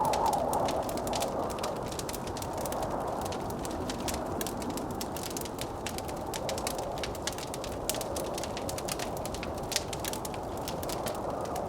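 Wood fire in a fireplace crackling, with many sharp pops, over a steady blizzard wind that swells briefly near the start.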